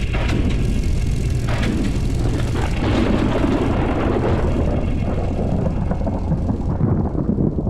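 Film soundtrack sound effects: a loud, dense low rumble with a few sharp hits in the first three seconds, turning duller near the end.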